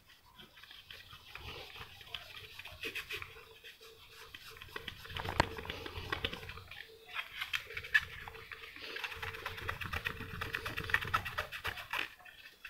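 Cotton cloth rubbing in quick, repeated strokes over a clear-coated plastic model car body as it is hand-polished, with a couple of sharper ticks in the middle.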